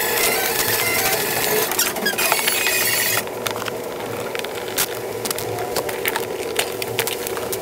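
Light clicks and rattles of hands working speaker cable and plastic parts into a car door, over a steady hum. The sound is denser for the first three seconds, then thins to scattered sharp clicks.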